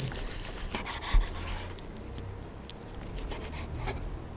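A carving knife sawing through a roast beef held with a carving fork: rubbing, rasping strokes with small clicks, and a soft thump about a second in.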